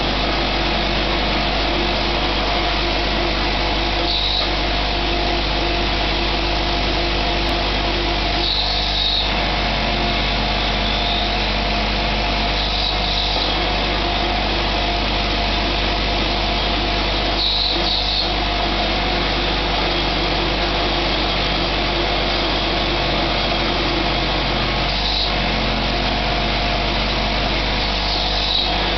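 CNC-converted X3 benchtop milling machine running a job: the spindle motor runs steadily while the stepper-driven table milling arcs runs underneath. There are brief higher-pitched changes in the sound several times.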